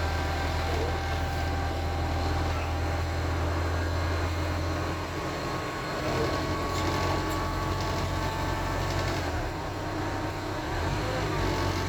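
Interior sound of a Wright StreetDeck double-decker bus on the move, its Mercedes-Benz OM934 four-cylinder diesel and driveline running. A steady low hum drops away about five seconds in and returns near the end, with a thin whine above it.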